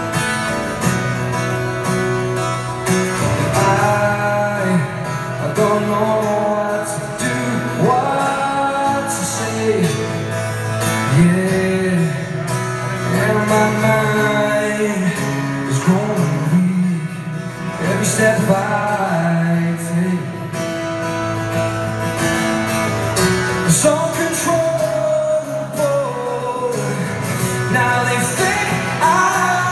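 A man singing a slow song while strumming an acoustic guitar, amplified through an arena's sound system.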